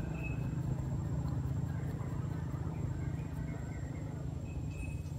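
Steady low hum of a running motor, like an idling engine, with two brief faint high chirps, one just after the start and one near the end.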